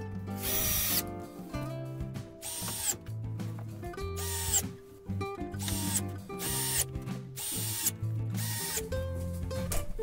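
Cordless drill-driver running in about seven short half-second bursts, driving screws into a brass door hinge.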